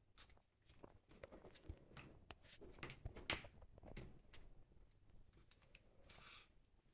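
Faint, scattered clicks and taps of plastic modelling-clay cutters and tools handled and pressed on a plastic-covered table, with a brief rustle near the end.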